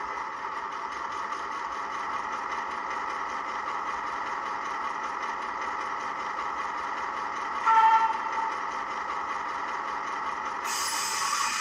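Sound decoder's recorded EMD 8-645 diesel idling steadily, played through the small speaker of a model Irish 141/181-class locomotive. A short horn toot sounds about eight seconds in, and a hiss joins near the end.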